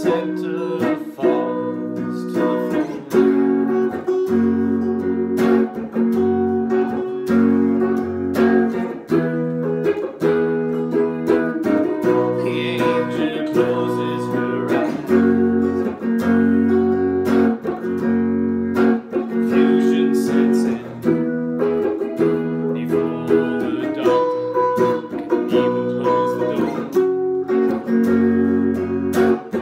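Epiphone Les Paul guitar strummed in a steady rhythm of changing chords, with a man singing along.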